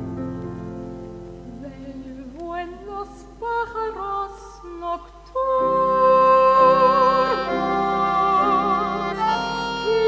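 Accordion and piano playing a slow tango song with sustained chords and a rising melodic line. From about halfway, a woman sings long held notes with a wide vibrato over them, louder than what came before.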